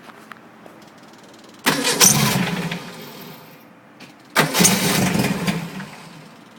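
Volkswagen engine heard in two short bursts, each starting suddenly and dying away over about a second, about two and a half seconds apart.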